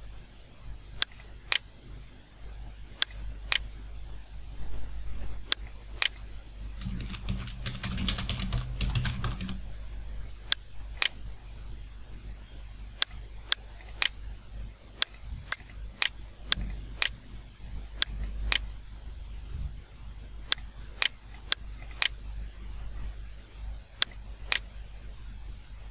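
Computer keyboard and mouse clicks during data entry: scattered single sharp clicks at irregular spacing, with a denser run of quick key clatter about seven to nine and a half seconds in.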